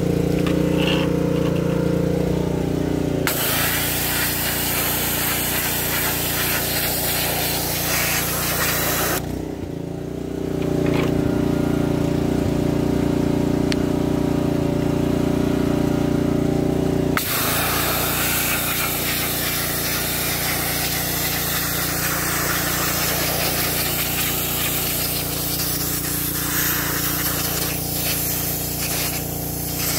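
Pressure washer running steadily, its wand spray hissing against a plastic truck grille from about 3 s to 9 s, then stopping. The spray starts again about 17 s in and keeps going.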